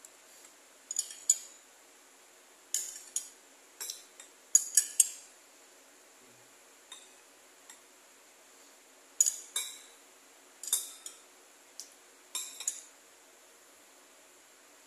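Metal spoon clinking against a ceramic bowl while scooping jelly cubes in milk: sharp, short clinks in irregular clusters of two or three, about a dozen in all.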